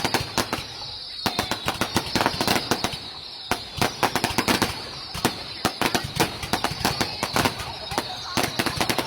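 Fireworks going off in quick, dense succession: many sharp bangs and crackles a second, with a short lull about a second in.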